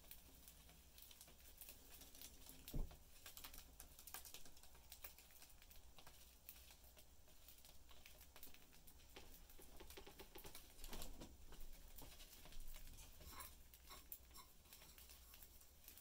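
Faint, irregular clicking and tapping of budgie beaks pecking and husking seed on a cardboard cage floor, with one louder knock about three seconds in.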